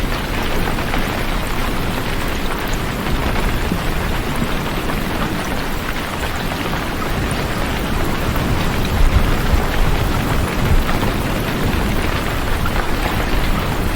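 Steady rain, with a deep low rumble underneath that swells a little about nine seconds in.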